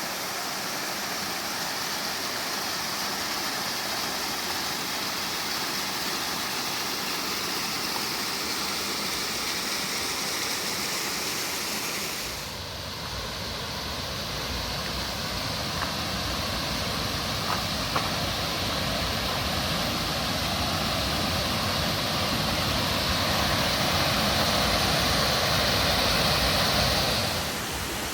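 Rushing water of a creek and waterfall, a steady hiss. About twelve seconds in it changes suddenly to a fuller, deeper rush that grows a little louder, then drops back just before the end.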